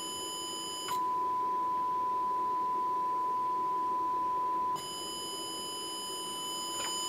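Steady high test tone from a TC Electronic Fireworx effects unit, harsh with distortion. About a second in the distortion drops out and the tone plays clean and louder for about four seconds, then the distortion returns. This is the intermittent fault at the analog-to-digital conversion stage, which the owner suspects is a ground issue.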